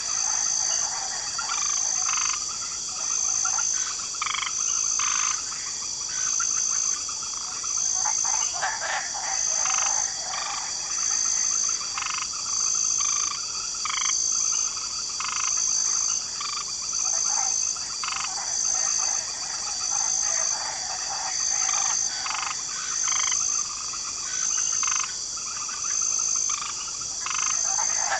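Swamp night chorus of many frogs croaking in waves that swell and fade. Under them runs a steady high drone of crickets, with a high chirp pulsing about once a second.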